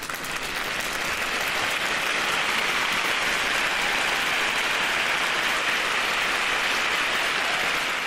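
Applause: many hands clapping together in a dense, steady patter. It swells in over the first second or two, holds steady, and begins to die away at the very end.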